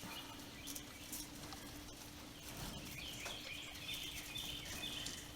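Quiet outdoor ambience: faint bird chirps in the second half over a low steady hum, with a few light ticks and rustles.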